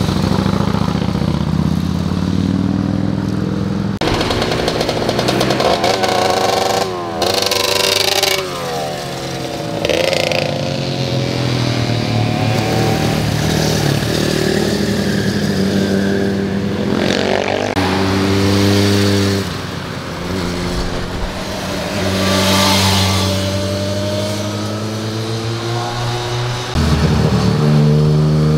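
Motorcycles passing one after another through a hairpin bend, their engines revving up and down in pitch as they lean through the curve and accelerate away.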